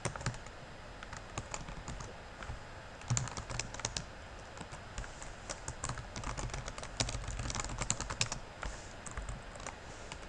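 Typing on a computer keyboard: irregular runs of keystroke clicks with short pauses, busiest about three seconds in and again around seven to eight seconds in.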